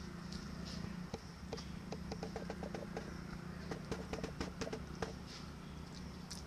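Water glugging out of a tipped plastic bottle and spattering on bare ground, with small crackles of the plastic: a quick run of light pops and clicks from about a second in to about five seconds in.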